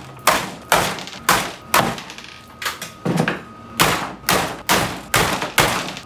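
Repeated hard blows on a small electric water heater's casing, about a dozen sharp strikes at roughly two a second with a short pause near the middle. The heater is being beaten to force open its stuck, rusted housing.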